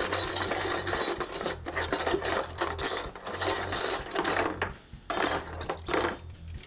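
A spoon clattering and scraping against the inside of a bowl as instant ramen noodles are stirred in water, with a short pause about five seconds in before a little more stirring.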